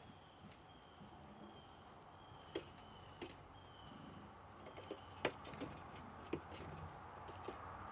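Small birds at a feeder: scattered light taps and clicks, with a faint thin high note repeated about once a second.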